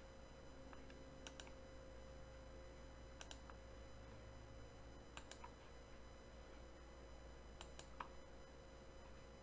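Faint computer mouse clicks, each a quick pair, about every two seconds, over a faint steady hum.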